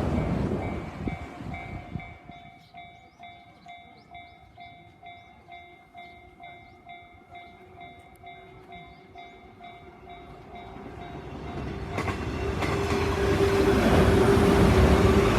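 Japanese level-crossing warning bell ringing its electronic chime about twice a second while the noise of a train fades away. Then another train approaches and passes the crossing, its noise and a steady hum swelling over the last few seconds.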